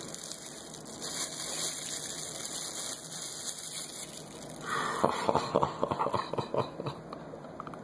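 Bubble wrap rustling and crinkling as it is pulled away from a cast silver piece, becoming louder about halfway through with a run of sharp crackles.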